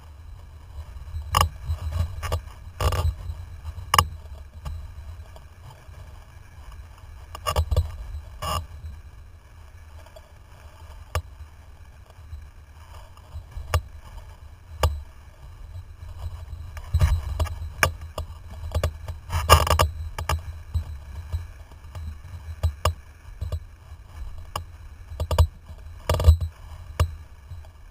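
Wind buffeting the microphone of a camera mounted on a windsurfing rig, a low rumble that swells and eases, with irregular sharp knocks and rattles from the rig and water.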